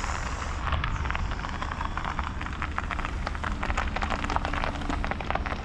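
Wind rumbling on the microphone, with a dense crackle of many small ticks over it, outdoors in falling snow at about minus 4 degrees.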